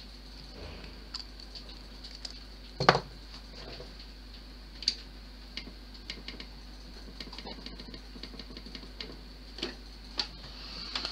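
Scattered small clicks and taps of laptop parts and tools being handled on a workbench, with one sharper knock about three seconds in, over a faint steady high whine.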